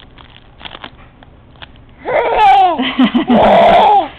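Infant laughing in high-pitched squealing giggles, a loud burst starting about halfway through and lasting about two seconds.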